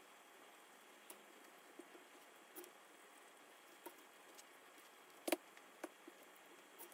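Near silence with faint, scattered clicks and taps of small tools being handled on a workbench, and a sharper double tap about five seconds in.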